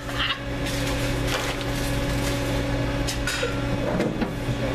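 Fast-food kitchen equipment humming steadily, with a few short knocks and clatters on top.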